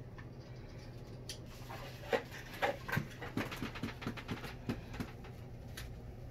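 Handling of an adjustable camera sling strap as it is fitted and adjusted: a run of small clicks and rustles from the strap's buckle and webbing, with a few short squeaks among them, starting about two seconds in and dying away about five seconds in.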